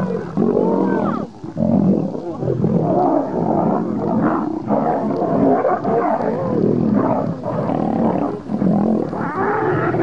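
Lions fighting: snarls, growls and roars one after another without a pause, rising and falling in pitch.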